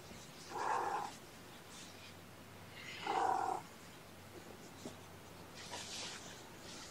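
A cat meowing twice, two short calls about two and a half seconds apart, with a soft rustle of fabric near the end.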